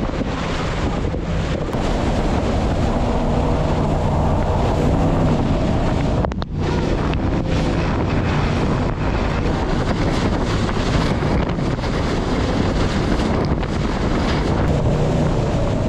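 Wind rushing over the microphone on a jet boat under way, with the boat's engine running steadily and water noise underneath. The noise dips briefly about six seconds in.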